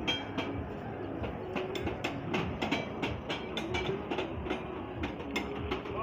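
Footsteps wading through floodwater: an irregular run of sloshing splashes, several a second.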